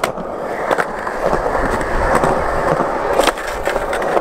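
Skateboard wheels rolling on smooth concrete, a steady rumble, broken by a few sharp clacks, the loudest about three seconds in.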